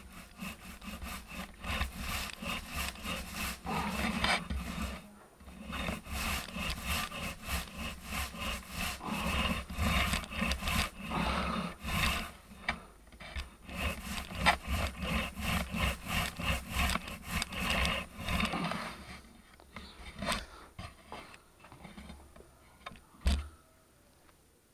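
Paint roller on a wooden extension pole rolled back and forth across a ceiling: rhythmic rubbing strokes, two or three a second, with a brief pause early on and the strokes stopping about three quarters of the way through. Near the end come a few light knocks and a single thump as the pole is set down.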